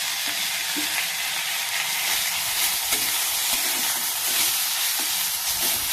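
Grated potato frying in hot oil in a kadhai with cumin and mustard seeds, sizzling steadily, with a few scrapes of a spatula stirring it.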